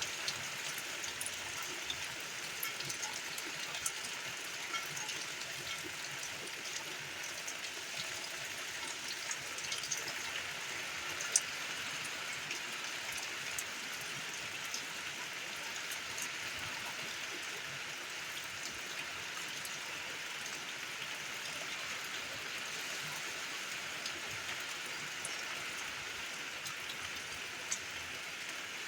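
Rain falling steadily: an even hiss with scattered sharp drips ticking through it, one louder drip about 11 seconds in.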